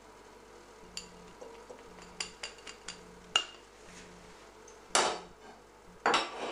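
A spoon clinking against a small glass dish as sweetcorn is scraped out into a glass bowl: a run of light sharp taps, then two louder short noises about five and six seconds in.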